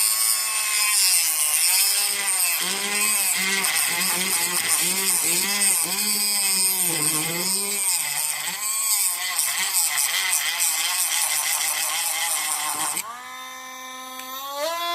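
Dremel rotary tool with a metal-cutting wheel cutting through hard plastic. The motor's whine keeps dipping and recovering as the wheel bogs under load, over a gritty grinding hiss. About thirteen seconds in the cutting stops and the tool runs free, quieter and with a steady whine.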